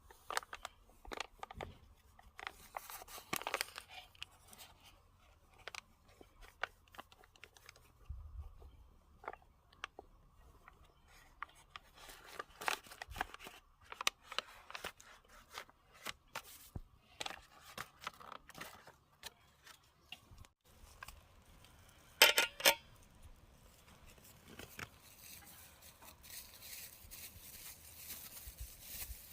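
Scattered small clicks, scrapes and tearing sounds of food preparation by hand, with a louder burst of sharp knocks about two-thirds of the way through and a soft rustling near the end.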